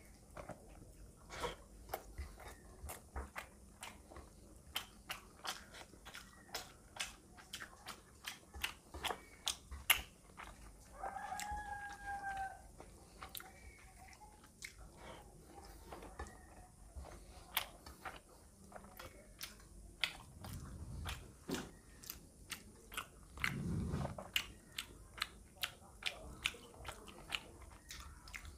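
Close-miked eating by hand: wet chewing and lip smacks of rice with fish curry, with many sharp mouth clicks. Two low thuds come later.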